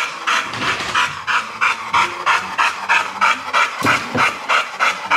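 American bully dog panting hard with his tongue out, quick even breaths at about three a second: out of breath after playing fetch.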